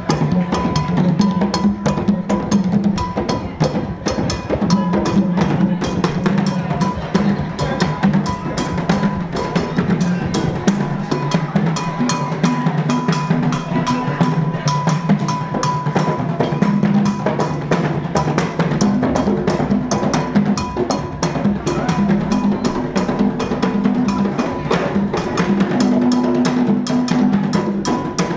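A live drum ensemble of djembe-style hand drums and tall conga-like drums, with one drum struck with sticks, playing a fast, dense dance rhythm without a break.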